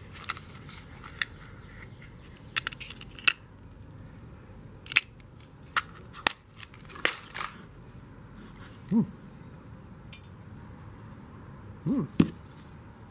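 A small clear plastic case being handled and snapped, with rusty metal parts clinking in a cardboard box: a scatter of sharp, irregular clicks and ticks.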